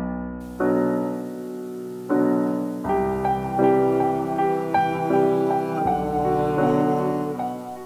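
Soft, slow piano music: sustained chords with a melody over them, fading near the end.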